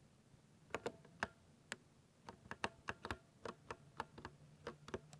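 Typing on a 60% mechanical keyboard with silver switches: irregular keystrokes, a few a second, starting about two-thirds of a second in, some in quick pairs.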